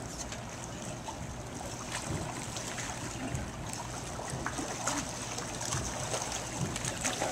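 Bay water sloshing and lapping against the rocks and pier at the waterline over a steady low rumble, with a few sharp knocks or splashes as a dog is worked out of the water beside a ladder.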